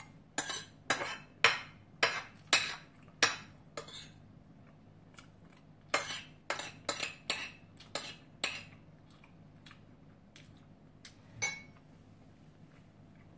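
Metal spoon clinking and scraping against a ceramic plate as food is scooped up. About two sharp clinks a second for the first four seconds, a second cluster a couple of seconds later, then a few scattered lighter clinks, the last near the end.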